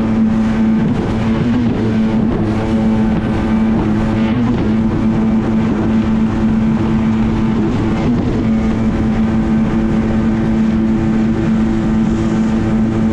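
Yamaha WaveVenture personal watercraft's two-stroke engine running steadily under way at cruising speed, its pitch wavering briefly a few times, with water rushing against the hull.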